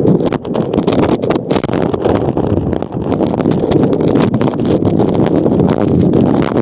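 Radio-controlled car driving with the camera riding on it: a dense, continuous rumble of wind on the microphone and chassis and tyre rattle, with constant crackling jolts.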